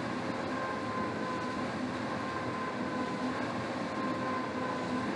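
Air rowing machine's fan flywheel whooshing steadily as it is rowed, with a faint steady whine over the rush of air.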